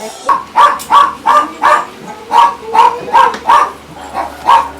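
A dog barking repeatedly in quick, sharp barks, about two to three a second, with a brief pause a little past two seconds in.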